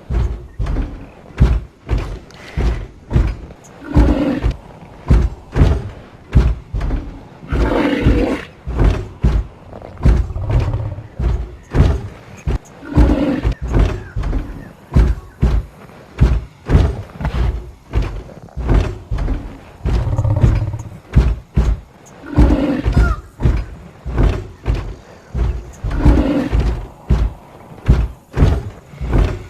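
Rhinoceros sound effect: a rapid run of short, low calls, about one or two a second, broken every few seconds by a longer, louder call.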